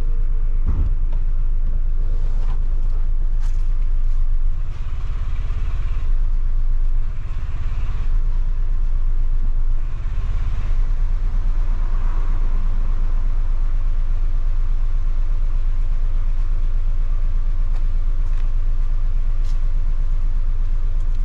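Audi A3's 1.8-litre turbocharged four-cylinder engine idling roughly in limp mode, with power cut by fault code 17743; a steady, low engine sound.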